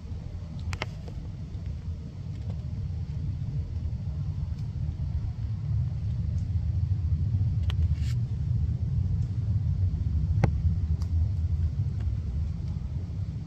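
A low rumble that swells through the middle and eases near the end, with a few faint clicks scattered through it.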